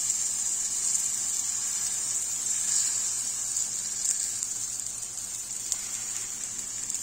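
Zucchini pancake batter sizzling in a hot, lightly oiled frying pan: a steady high hiss that slowly eases as the batter sets. A few faint clicks near the end.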